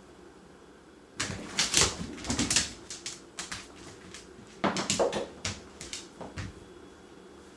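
A husky crunching and chewing a frozen strawberry: two runs of quick, sharp crunches, one starting about a second in and another a little before the five-second mark.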